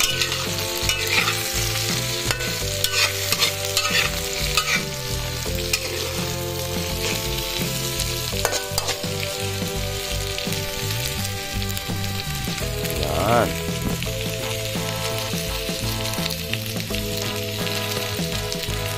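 Eggplant slices and onion rings sizzling in oil in a pan while a spatula stirs and scrapes them, with sharp scraping strokes over the first five seconds.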